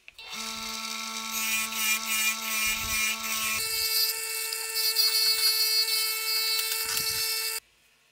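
Electric water-pump motor driving a homemade sandpaper disc sander, running with a steady whine and a hiss as wood is sanded against the disc. About three and a half seconds in the whine jumps higher in pitch, and near the end it cuts off suddenly.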